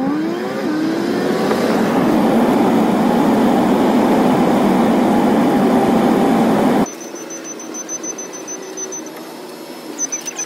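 Cargo van driving, heard from inside the cab: engine and road noise rising in pitch as the van accelerates, then steady. It cuts off suddenly about seven seconds in, leaving a quieter background with a faint, high-pitched tone in short pulses.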